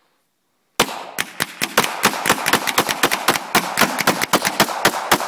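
.40-caliber pistols fired rapidly by two shooters at once, starting about a second in: a fast, uneven string of shots, about six a second.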